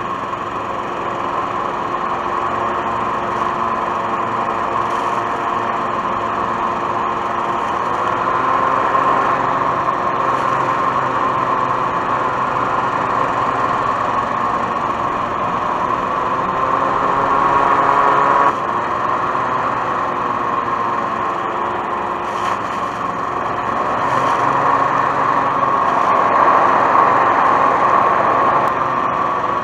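Hovercraft engine and lift/thrust fan running, its pitch and loudness rising and easing with the throttle, with a sudden drop in level about eighteen seconds in.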